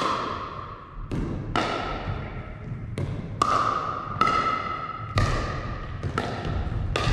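Pickleball rally: paddles striking the hollow plastic ball in a quick run of sharp pocks, about eight in seven seconds, each ringing out in the echo of a large gym.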